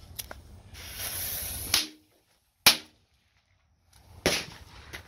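Small handheld firecrackers going off: a fuse hisses for about a second, then three sharp bangs follow over about two and a half seconds, the second the loudest.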